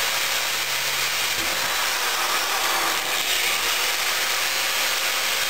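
Electric drill boring a 1/8-inch hole into a copper pipe: a steady, hissing whir with no breaks.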